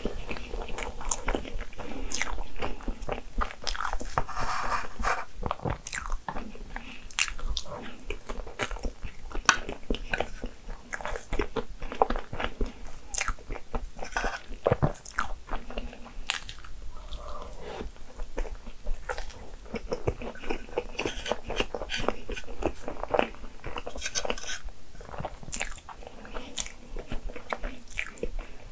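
A person biting and chewing crepe cake with fresh cream, many short sharp clicks and smacks in quick succession.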